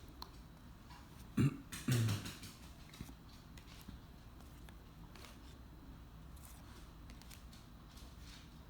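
A man clearing his throat twice in quick succession, the second lower and falling. Faint clicks of baseball cards being handled follow.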